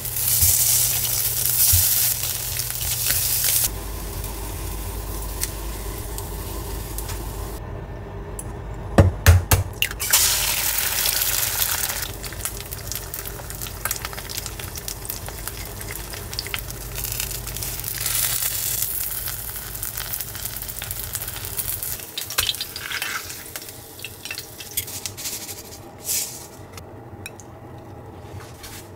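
Slices of Spam, then an egg, sizzling as they fry in a frying pan. There are a couple of sharp knocks about nine seconds in.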